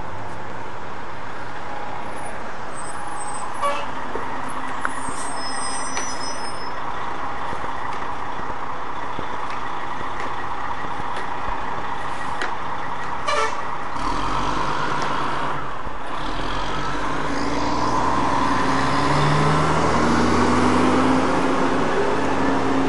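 Street traffic noise, joined about halfway through by the deep rumble of a fire engine's engine, which revs up and rises in pitch near the end.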